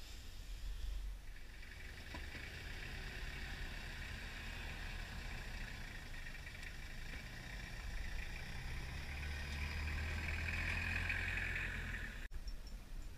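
Road traffic, a steady hiss and rumble of passing vehicles, swelling as one vehicle goes by near the end.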